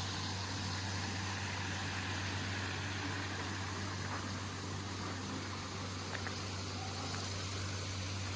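Small stream flowing over rocks, giving a steady rushing noise, with a steady low hum underneath.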